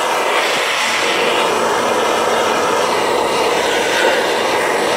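Acetylene torch flame burning with a steady hiss, played into a crucible to melt sterling silver.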